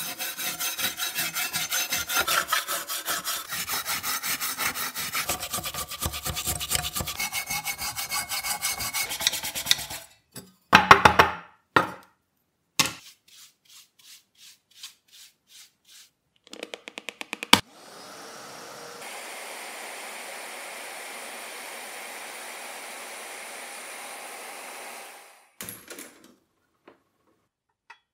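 Scraper blade rasping rust and old paint off a pressed-steel toy panel in rapid short strokes for about ten seconds, then a few louder scrapes. Light brush strokes sweep loose rust dust across a workbench, and a steady hiss runs for several seconds near the end.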